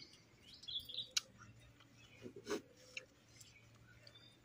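A few soft clicks and smacks of people eating rice by hand from steel plates, the loudest about two and a half seconds in, with faint bird chirps near the start.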